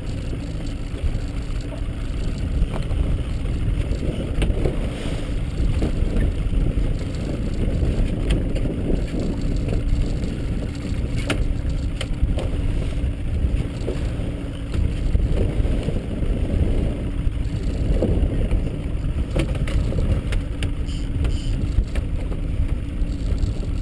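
Steady low rumble of wind and water around a small open fishing boat at sea, with a faint steady hum beneath and a few sharp knocks scattered through.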